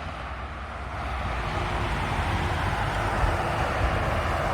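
Low rumble of a train or locomotive, growing slowly louder.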